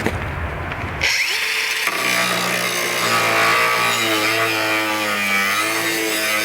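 DeWALT DCG413B 20V cordless angle grinder with a cutoff wheel, switched on about a second in. It spins up with a rising whine, then runs loud and high-pitched, its pitch dipping and wavering as the wheel is pushed into the cut.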